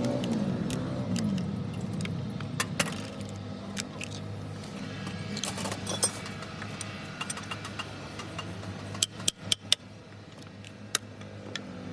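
Metal tools and parts clinking and jangling, with sharp clicks that cluster about three-quarters of the way through, over a steady low hum of a running engine.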